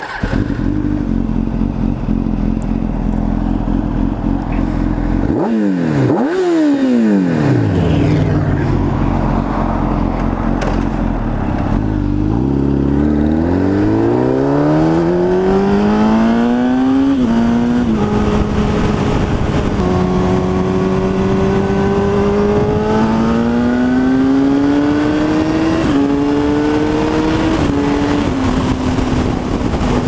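Kawasaki ZX-10R's inline-four running through a Two Brothers Racing M-2 exhaust with cat delete. It holds a steady note, is revved twice, then accelerates hard with the pitch climbing and dropping at each of two upshifts.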